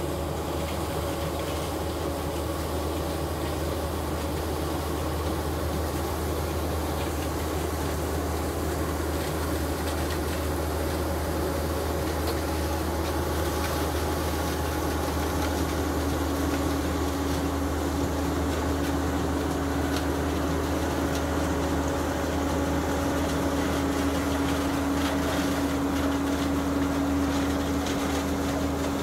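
John Deere 1450 CWS combine harvesting maize with an Olimac Drago six-row corn header: engine and threshing machinery running steadily as it passes, growing slightly louder, with a steady hum coming in about halfway through.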